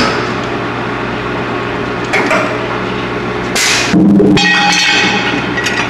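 Brake shoe projection seam welding machine running its automatic weld cycle: a steady electrical hum under mechanical knocking and clinking, a short hiss about three and a half seconds in, then a loud buzz that cuts off sharply.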